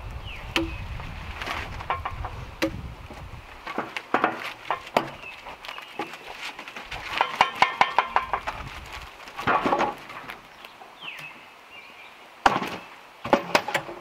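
Sharp wooden and metal knocks and chops from logs being handled and loaded onto a band sawmill: scattered knocks, a quick rattling run of knocks around the middle, and two loud knocks near the end. Birds chirp briefly now and then.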